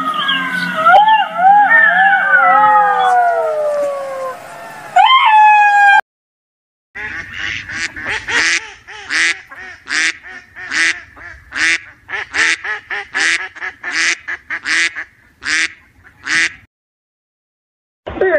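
Ducks quacking: a regular run of about eighteen loud quacks, roughly two a second, for nearly ten seconds. Before them, the first five seconds hold wavering, falling animal cries that end in a sharp rising squeal.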